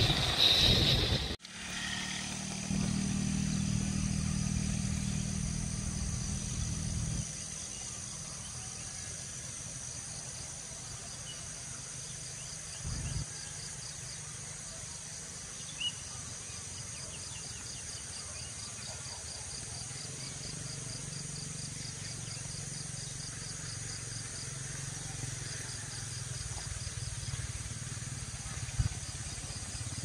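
Outdoor rural ambience: a low engine hum, strongest for several seconds after a sudden cut near the start and then fainter, under a steady high insect trill.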